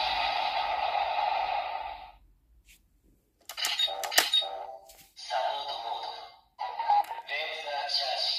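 Premium DX Memorial Laser Raise Riser toy playing electronic transformation music through its small speaker. The music stops about 2 s in, sharp clicks follow after a short silence, and then new electronic sound effects and music start up in stops and starts.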